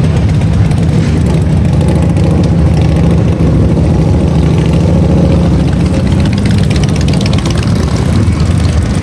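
Motorcycle engine idling, loud, low and steady.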